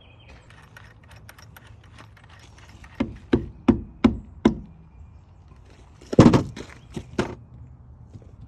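A series of hard knocks: five quick ones about a third of a second apart, then a louder clatter and two more knocks a moment later.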